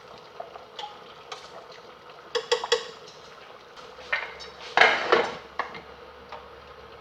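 Metal utensil clinking against a cooking pot: scattered light taps, three quick ringing clinks about two and a half seconds in, then a louder clatter of strikes around five seconds in.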